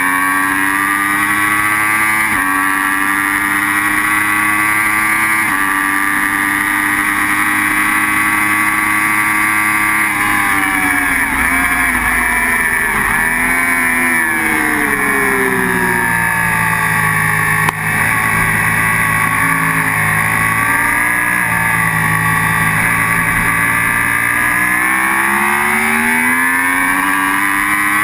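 Sportbike engine at high revs, heard from onboard with wind rush. It changes up twice in the first few seconds and holds high revs. About ten seconds in it drops through a run of downshifts under braking, stays at lower revs through a corner, then rises again as it accelerates near the end. A single sharp knock comes about two-thirds of the way through.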